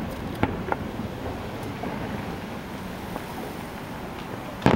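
Fireworks going off over a steady rumbling background: two small pops about half a second in, then one loud, sharp firework bang near the end.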